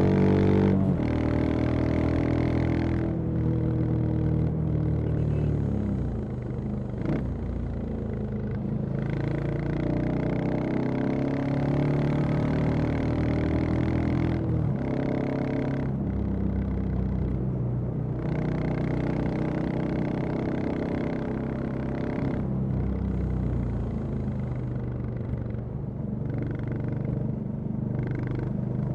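Royal Enfield Classic 350 single-cylinder engine and exhaust riding through traffic, the pitch rising under acceleration and dropping at each gear change, several times over.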